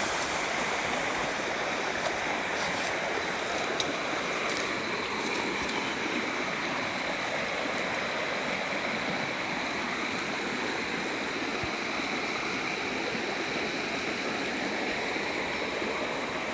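Mountain river flowing: a steady, even wash of rushing water.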